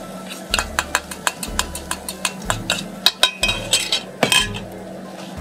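A steel mixing bowl and a wooden spatula knocking and scraping against a nonstick frying pan as the beaten egg and pecorino are scraped into the tagliatelle and stirred. It comes as a quick, irregular run of clicks and knocks, with the loudest knock about four seconds in.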